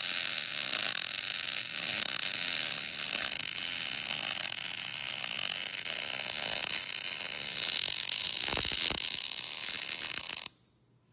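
MIG welding arc crackling steadily while a bead is run with an up-and-down weave, then cutting off suddenly near the end as the torch trigger is released.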